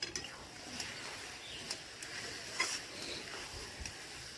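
Metal spatula scraping and tapping in a metal karahi as cabbage is stirred over a wood fire, a few sharp strokes about once a second over a faint sizzle.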